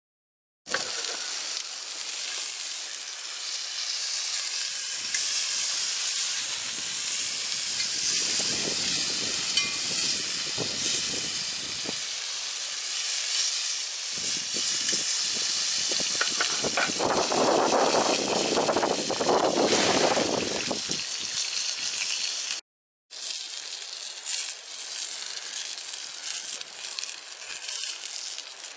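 A steady hiss, broken by two brief cuts to silence, at the start and about 23 seconds in, with a fuller, lower rush swelling around 17 to 20 seconds.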